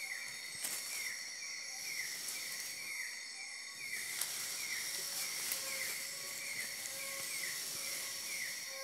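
Tropical rainforest insect chorus at dusk: a steady high-pitched drone of many insects, with a short falling chirp repeated a little more than once a second and a low steady tone beneath.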